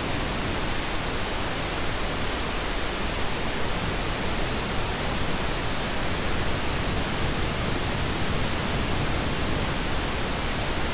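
Steady pink noise, a full even hiss with no EQ applied, played as the unaltered reference before equalized versions.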